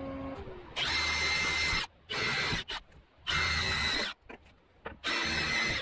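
Cordless drill driving 3.5-inch exterior screws into a wooden siding batten, running in four short bursts of about a second each with brief pauses between.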